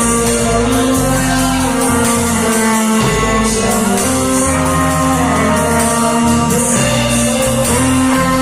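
A church worship band playing live: a sung melody over guitar, a shifting bass line and cymbals, with long held notes.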